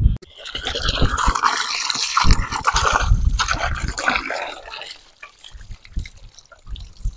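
Water from a garden hose splashing over a raw whole chicken and into a bucket of water as the bird is washed by hand. The splashing is loud for about five seconds, then drops to softer trickling and a few low knocks.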